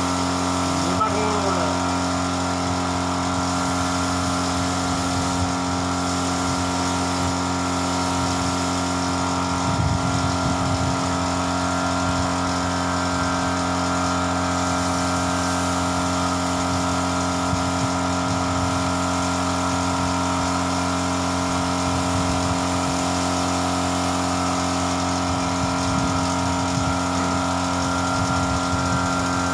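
Air compressor running steadily, a constant motor hum with a hiss of air above it, unchanging throughout.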